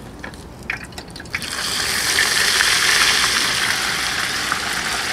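Flour-coated chicken wings lowered in a wire basket into 375°F oil in a Cuisinart deep fryer: a few light metal clicks from the basket, then about a second and a half in the oil starts sizzling and bubbling loudly and keeps going steadily.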